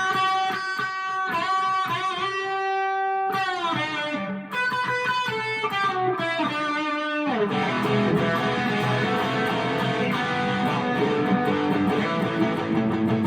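Electric guitar played through a Joyo Dark Flame distortion pedal into a Harley Benton amp: sustained distorted single notes and short phrases, then from about seven seconds in a dense run of distorted strummed chords.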